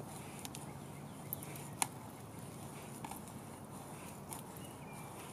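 Hand brace and auger bit boring into a dried black cherry log: a faint, steady cutting noise of the bit turning in the wood, with a few sharp clicks and ticks.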